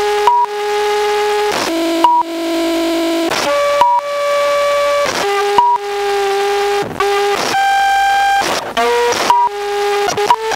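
DIY modular synthesizer sequenced by a six-step signal switcher: buzzy held tones rich in overtones, jumping to a new pitch every second or two with a click at each step. Near the end the steps come quickly as the step speed is turned up.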